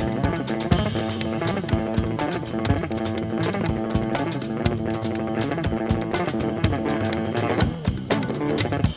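A live band playing an instrumental passage: plucked guitar and bass guitar over a steady percussion beat.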